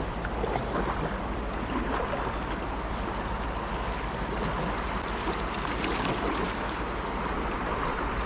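Steady rushing of shallow river rapids around a kayak as it is paddled down through them, with paddle blades dipping and splashing in the water.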